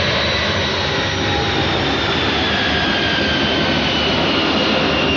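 Jet aircraft engine noise, loud and steady, with a high whine slowly falling in pitch.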